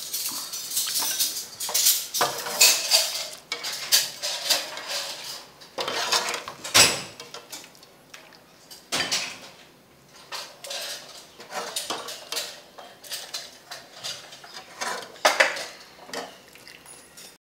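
A ladle clinking and scraping against a metal cooking pot and a ceramic bowl as soup is ladled out, in irregular knocks and scrapes, the loudest about halfway through and near the end.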